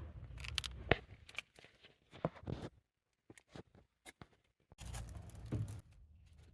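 A few scattered sharp clicks and light knocks of handling in a small room, then a dead-quiet gap of about two seconds, then a low rumble near the end.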